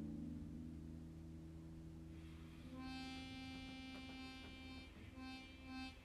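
A strummed chord on a four-string acoustic guitar with rusted strings rings out and fades. About three seconds in, a harmonica comes in faintly with a held note, then plays a few short notes near the end.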